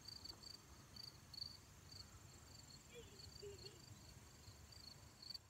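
Crickets chirping faintly, a run of short high chirps repeating a few times a second over a quiet background.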